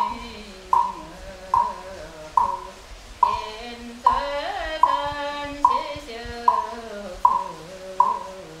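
Buddhist chanting: one voice intoning long, slowly gliding notes, kept in time by a wooden fish (muyu) knocked steadily about every 0.8 seconds.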